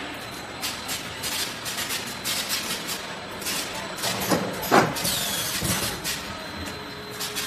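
Multi-head cooking-oil filling machine and its bottle conveyor running: a steady mechanical noise with frequent irregular clicks and clacks, and a louder clatter a little past the middle.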